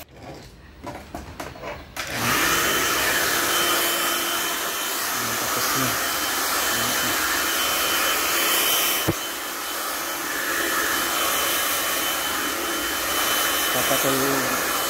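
Hand-held hair dryer switched on about two seconds in and running steadily with a thin high whine, blowing loose clippings off freshly cut hair.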